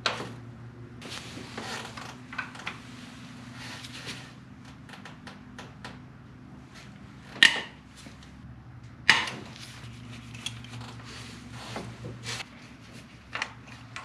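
Hand tools working on the timing chain tensioner bolts: a ratchet clicking and steel clinking against the engine in short, irregular clicks, with two louder metallic knocks about a second and a half apart near the middle.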